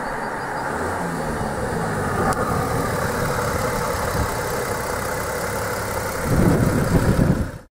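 Turbocharged 3.0-litre V6 diesel of an Audi A4 TDI idling steadily, getting louder and more uneven for the last second or so.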